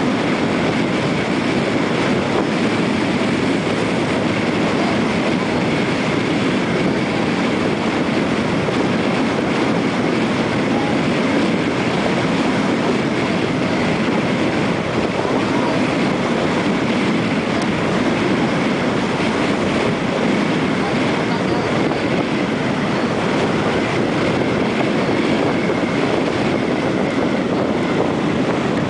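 Steady rumble of a catamaran ferry under way at speed, its engine noise mixed with rushing water and wind buffeting the microphone, with a faint high steady whine.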